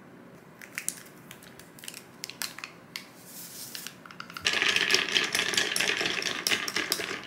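A few light clicks and a short rustle as kombucha drink mix is added, then, about halfway through, a spoon stirring ice cubes in a glass: a fast, dense clinking rattle lasting about three seconds.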